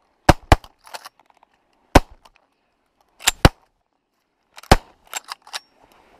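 Shotgun fire at ducks: six loud shots over about five seconds, two of them fired in quick pairs, with fainter cracks in between.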